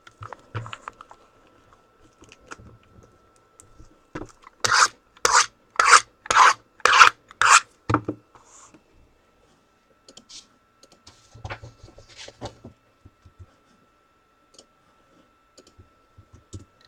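Six quick rasping strokes, about two a second, of something rubbed or scraped back and forth, then a few fainter scrapes and knocks. A faint steady high tone runs underneath.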